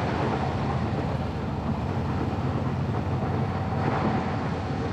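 A vehicle on the move: steady engine and road rumble.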